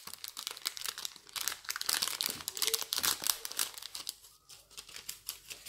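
A clear plastic packet being crinkled and worked open by hand: dense, irregular crackling that thins out over the last couple of seconds.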